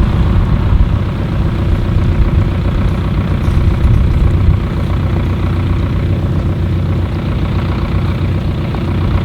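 A heavy engine running steadily at a low, even speed.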